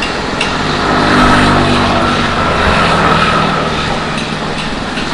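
A motor vehicle passing along the road close by: its engine note swells about a second in, drops slightly in pitch as it goes past, and fades away over the next few seconds.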